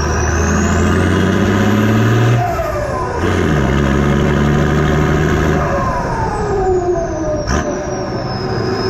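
Turbocharged TD42 diesel six in a Nissan GQ Patrol, revs climbing then dropping twice, with a high turbo whistle rising with the revs and falling away as the turbo spools down after each throttle lift. A sharp click is heard about three-quarters of the way in.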